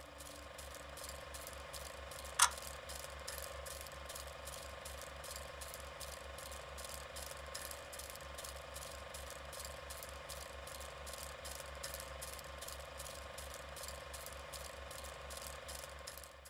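Faint, steady mechanical ticking, about four clicks a second, over a low hum. One sharper click comes about two and a half seconds in, and the ticking stops abruptly at the end.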